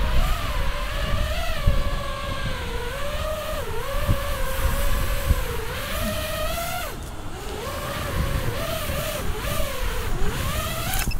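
FPV racing quadcopter's brushless motors and propellers whining, the pitch wavering up and down constantly with the throttle as the drone fights strong gusty wind while trying to land. About seven seconds in the whine falls and cuts out briefly, then picks up again. Wind rumbles on the microphone underneath.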